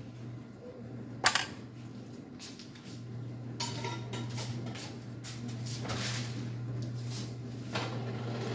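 Kitchen handling sounds: a sharp clink about a second in, then a few softer knocks as a side-by-side refrigerator door is opened, over a steady low hum.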